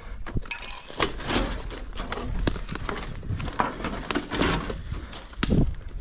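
Irregular rustling and crackling with scattered sharp clicks and knocks: handling and movement noises from outdoor work, with no steady machine sound.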